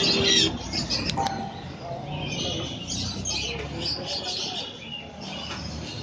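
A crowd of small caged birds chirping, loudest at first and then fainter, with a couple of sharp ticks about a second in.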